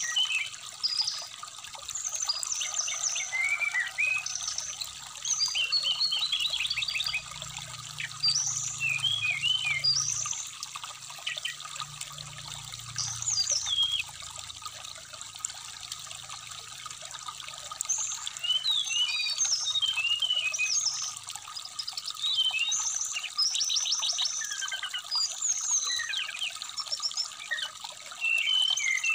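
Brown-chested jungle flycatcher song: a run of varied high chirps, slurred whistles and quick trills, over a steady trickling stream.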